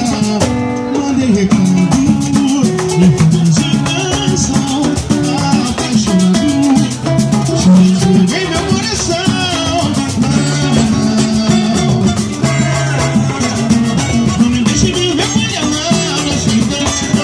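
Instrumental passage of a Portuguese-language song: a shaker-type rattle keeps a fast, even beat under guitar, bass and a melodic lead line.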